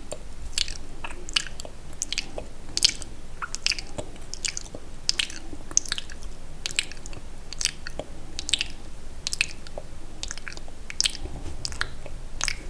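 Close-miked wet mouth sounds: sticky smacks and clicks of lips and tongue, about one or two a second.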